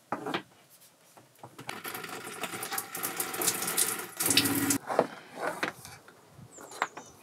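Water running from a handheld shower head and splashing onto a wooden slatted shower floor, with a brief steady hum about four seconds in.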